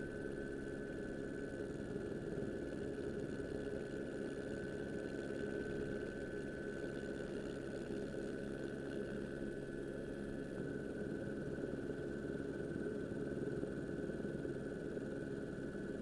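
Steady engine drone: an even hum with a thin high whine above it, holding the same pitch throughout.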